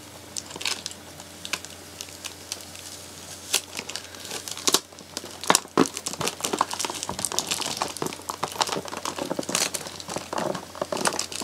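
Doll box packaging crinkling, rustling and tearing in the hands as a doll is worked free of its box: irregular crackles and scrapes, sparse at first and busier from about halfway through.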